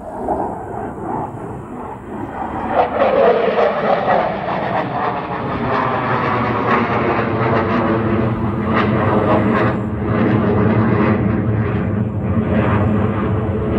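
Jet aircraft flying overhead. Its engine noise swells about two and a half seconds in, with a falling whine, then stays loud and steady.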